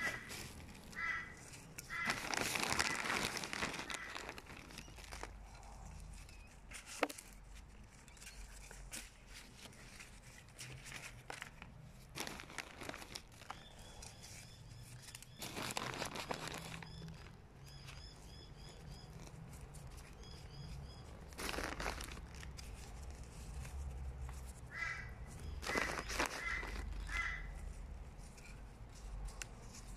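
Potting soil being pressed and patted down by a hand in a rubber glove around a plant in a pot, heard as bouts of rustling and crumbling, the loudest a few seconds in. Birds call in short repeated notes in the background.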